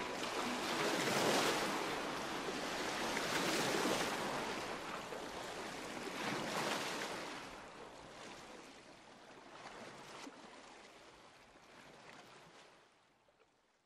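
Ocean surf: waves wash in and recede every two to three seconds, and the whole sound fades out gradually near the end.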